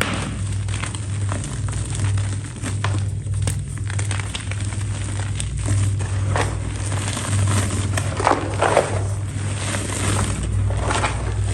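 A crisp, brittle material being crumbled and crushed: a dense run of crackling and snapping, with louder crunchy clusters about eight seconds in and again near the end.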